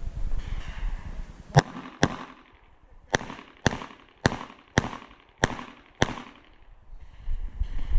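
Glock 47 9mm pistol fired eight times as four pairs of shots, about half a second between the shots of each pair and about a second between pairs.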